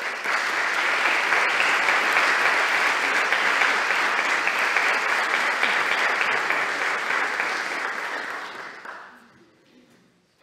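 Audience applauding, starting suddenly and dying away over the last couple of seconds.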